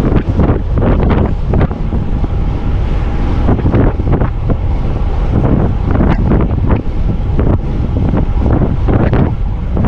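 Loud wind buffeting the microphone of a camera on a road bike descending at speed, with an irregular gusting rush.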